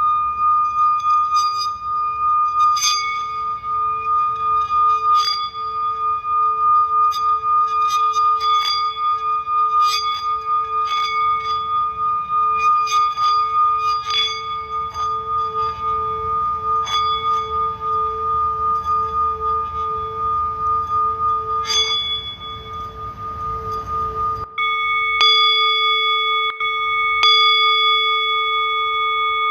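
Singing bowl sustaining a steady, slightly wavering ringing tone, with many struck bells ringing out over it. About 24 seconds in the low background rumble cuts out and two higher steady ringing tones join.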